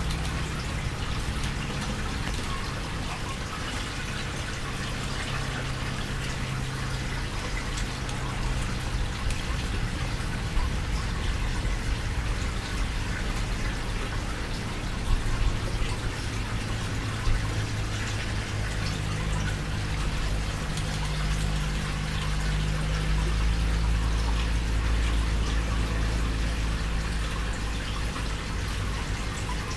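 Water from the tank's light filtration trickling and splashing steadily, over a low steady hum, with a few small knocks in the middle.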